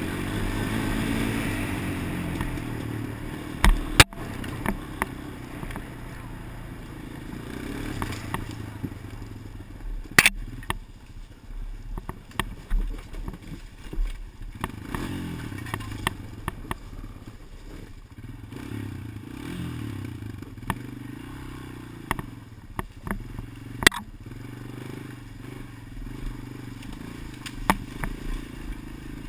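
Honda TRX250EX ATV engine running at varying speed, with many sharp, irregular clicks and knocks throughout, the loudest about 4, 10 and 24 seconds in. The owner takes the clicking for a noise fault in the GoPro's audio.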